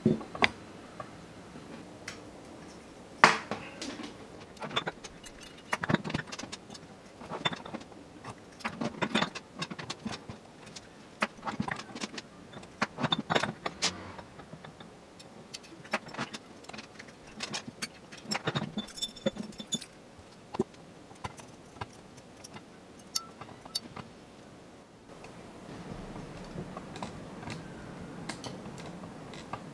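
Steel bicycle spokes clicking and jingling against one another, the rim and the flange of an electric-bike hub motor as they are laced into a wheel: irregular metallic taps and clinks, a few with a short ring.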